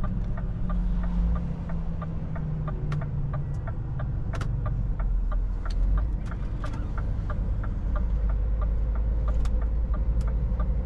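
Scania S450 truck's 13-litre straight-six diesel running at low revs, heard from inside the cab. A regular light ticking, about two a second, sits over the engine.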